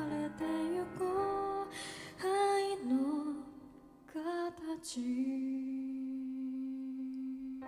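A woman singing a slow Japanese pop ballad live with piano, ending on one long held note over the last two and a half seconds with little under it.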